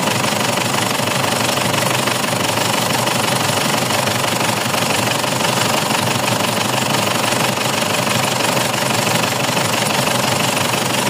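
Mazda BT-50's 3.0-litre WE turbo-diesel idling with a steady clatter while its injectors are cut out one at a time to test them. The mechanic finds the injectors uneven, number 3 weak, and judges they need calibrating.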